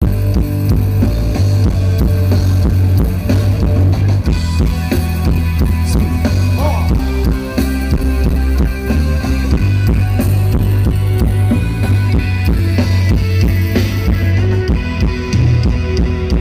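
Rock band playing, with the drum kit and bass loud and steady.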